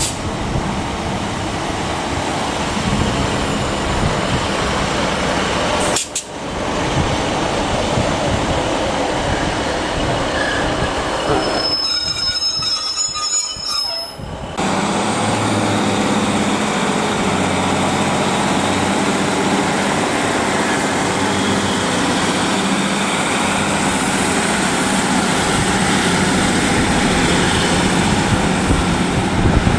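Northern Class 156 two-car diesel multiple unit running through a station: continuous wheel-on-rail and diesel running noise. A high wheel squeal comes about midway, and in the second half the diesel engines hum steadily with the unit close by.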